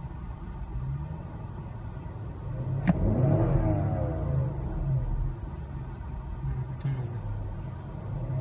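2015 BMW X5's engine revved while parked, heard from inside the cabin: idling, then rising sharply to about 4000 rpm around three seconds in and falling back down. A sharp click at the start of the rev is the loudest moment.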